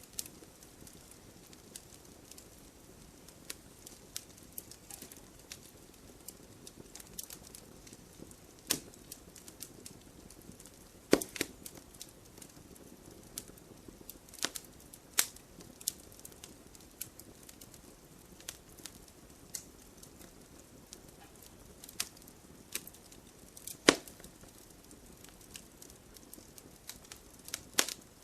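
Burning firewood crackling: irregular small pops and snaps over a soft steady hiss of the fire, with a few louder cracks scattered through, the loudest near the end.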